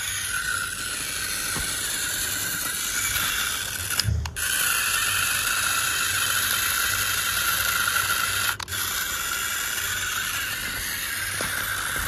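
The electric drive motor and gearbox of a remote-control Swaraj 855 model tractor whirring steadily as its wheels dig through loose dirt in a pit. The whir cuts out briefly twice, about four and eight and a half seconds in.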